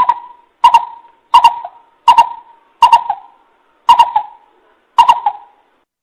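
Coucal calling: a series of seven evenly spaced notes, each starting sharply and fading away, the gaps widening slightly toward the end.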